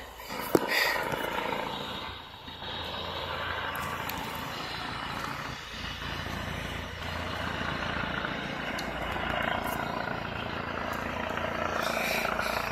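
Medevac helicopter approaching from a distance, its rotor and engine noise steady and slowly growing louder. A single sharp click about half a second in.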